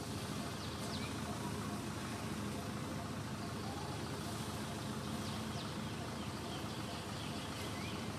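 Steady low outdoor background rumble with a few faint, short high chirps.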